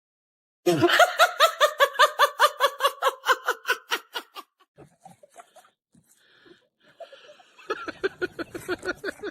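A burst of high-pitched laughter, a rapid run of 'ha-ha' pulses about five a second that slowly drops in pitch and fades out, followed near the end by a second, quieter round of laughing.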